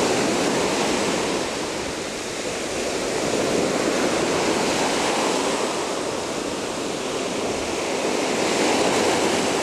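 Ocean waves washing up on a beach: a steady rush of surf that eases and swells again every few seconds.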